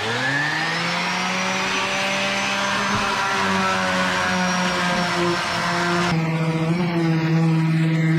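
Electric random orbital sander spinning up to speed, then running steadily while sanding a cured epoxy resin and red oak board. Its hiss changes about six seconds in.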